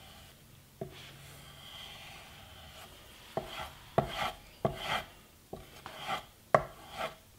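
A steel plane iron being pulled back along a strop in about five short strokes, roughly one a second in the second half, each a sharp contact tick followed by a brief scraping rub: stropping the bevel to polish the micro bevel and remove the burr.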